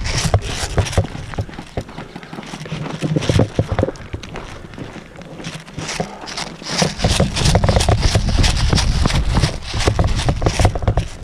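Footsteps of a person moving quickly over dry ground, with gear rattling and scraping; a heavy low rumble of wind or handling on the camera microphone builds over the last few seconds.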